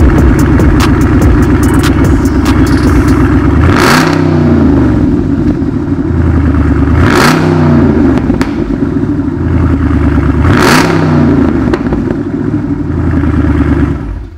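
Dodge Charger Scat Pack's 6.4-litre HEMI V8 idling through its exhaust and revved three times, each rev rising and falling back to idle within about a second.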